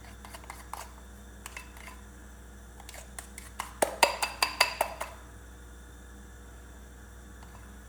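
A utensil clinking against a bowl while stirring flour batter: a few scattered taps at first, then a quick run of about a dozen ringing clinks around the middle.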